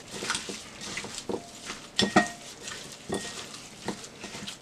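Raw chicken pieces being mixed by hand with dry seasoning in a glass bowl: irregular squishing and handling of the meat, with knocks against the glass, two of which ring briefly about two and three seconds in.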